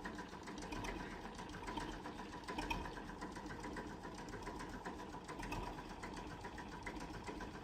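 A machine running steadily with a fast, even ticking clatter and a faint steady hum.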